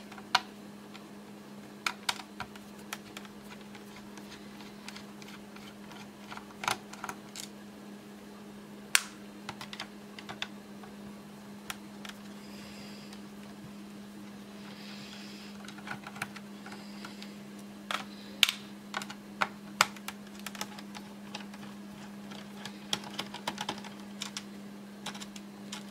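Irregular small clicks and taps of a screwdriver working screws out of a laptop's plastic case, with a steady low hum underneath.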